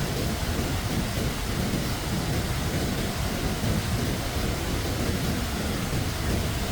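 Steady rushing noise of heavy water, with a deep rumble underneath and no separate claps or strokes.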